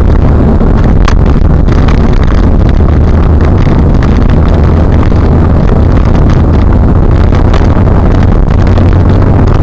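Car driving at speed: a loud, steady low rumble of engine, tyre and wind noise, heard from inside the car.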